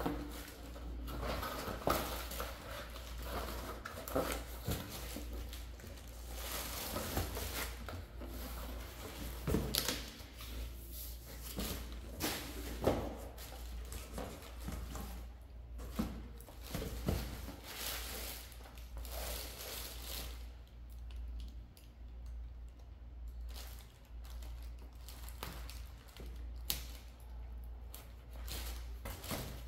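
Cardboard boxes, boxed album sets and plastic bubble-wrap packing being handled: irregular rustling, scraping and sharp knocks as items are lifted and shifted, over a steady low hum.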